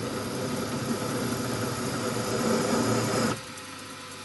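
Milling machine motor running with a steady hum, cutting off suddenly about three seconds in.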